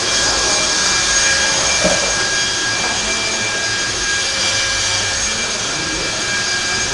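Electric RC stadium trucks with 13.5-turn brushless motors racing, a steady high whine of motors and gears over a constant rush of noise.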